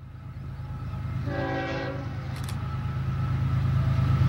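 Approaching diesel train: the low rumble of the locomotive engines grows steadily louder, with one short blast of the locomotive's air horn, several tones together, about a second and a half in.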